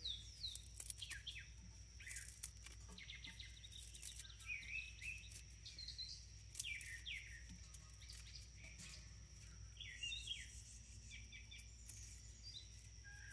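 Small birds chirping and calling outdoors, short chirps and quick rising and falling notes scattered throughout, over a steady high-pitched tone.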